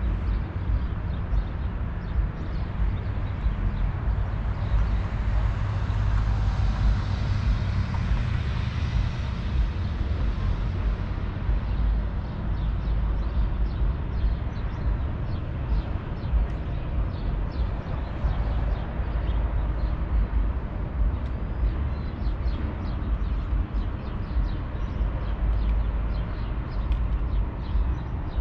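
Wind buffeting the microphone as a steady low rumble, with a vehicle passing by from about four to ten seconds in. Faint short high ticks or chirps come and go in the second half.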